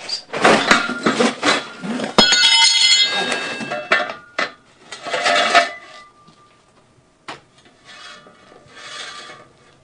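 Steel telescoping basement support jack clanking and rattling as it is handled and carried into place, with a knock and a brief metallic ringing about two seconds in. Quieter scrapes and a single knock follow in the second half.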